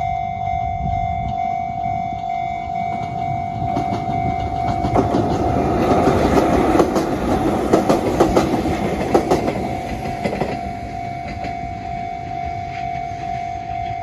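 Level-crossing warning bell ringing steadily as a Konan Railway electric train passes over the crossing. The train comes in about four seconds in, with a run of wheel clacks over the rail joints at its loudest, and fades out after about ten seconds while the bell keeps ringing.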